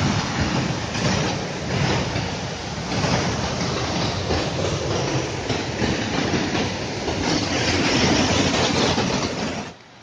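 Rushing water of a forest waterfall and mountain stream, a loud steady roar that cuts off sharply just before the end.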